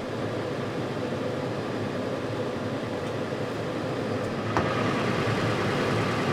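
A vehicle engine running steadily, with one sharp click about four and a half seconds in.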